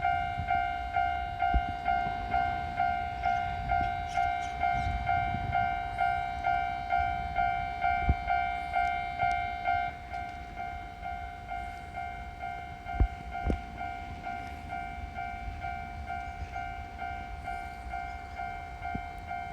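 Japanese level-crossing warning alarm ringing its repeated 'kan-kan' ding, about one and a half strokes a second. About halfway it drops a little in level and sounds less bright. There are a few short low thumps.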